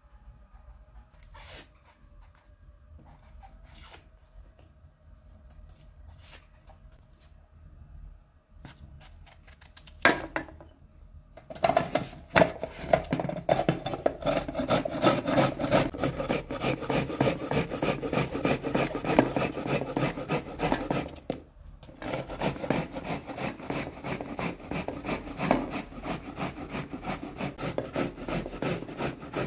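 Small kitchen knife peeling an eggplant by hand, its blade scraping the skin off in rapid, rough strokes. The rasping starts about eleven seconds in, stops for a moment past the middle, then carries on. Before it there are only faint small clicks of handling.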